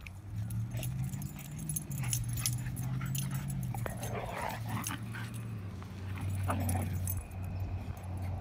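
Dogs wrestling in rough play: a long low growl runs through, with scuffling clicks, a short whine about two-thirds of the way in, and a noisy huff around the middle.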